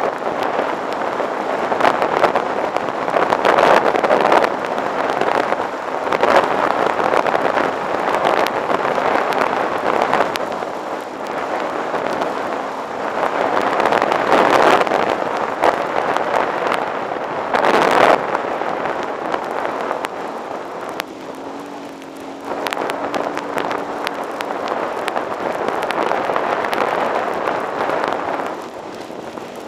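Wind buffeting the microphone of a camera on a dirt bike riding a gravel road, in uneven gusty rushes with crackly spikes. The motorcycle engine's steady note comes through faintly under the wind in the second half.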